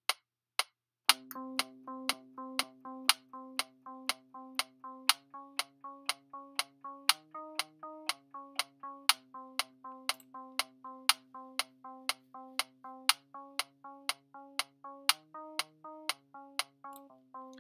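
Reason's metronome clicking two times a second at 120 BPM, a count-in followed about a second in by a Subtractor software synth melody of short repeated notes played live over the click. The melody's pitch steps up a little and back down a couple of times.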